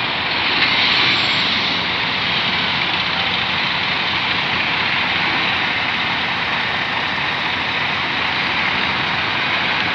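Volvo B11R coach's 430 hp diesel engine running as the coach pulls away and drives off; a steady, even sound, a little louder about a second in.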